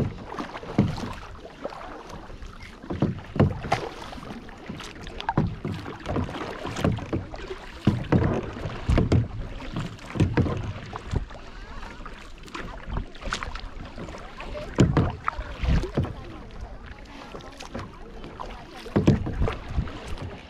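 Kayak paddle strokes: the blades dip and splash in lake water in an uneven rhythm, about one stroke a second, with water lapping against the hull and some wind noise on the microphone.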